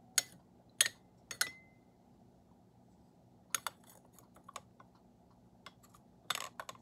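Small tea cups clicking and clinking as they are handled and set down: three sharp clicks about half a second apart near the start, the last with a short ring, then lighter scattered taps and a brief clatter near the end.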